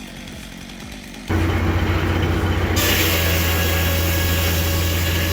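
A large sawmill saw starts running about a second in with a loud, steady hum. Near the middle of the stretch a dense hiss joins it as the blade cuts into a log.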